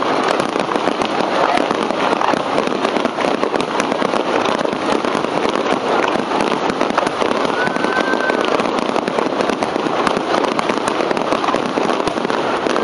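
Fireworks display in a dense barrage: a continuous rapid crackle and popping of many shells and stars bursting at once, loud and steady throughout.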